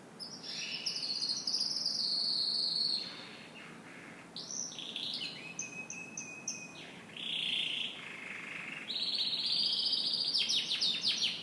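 Domestic canary singing a long song of rapid high trills and varied notes. It eases briefly about three seconds in and finishes with a loud, fast trill.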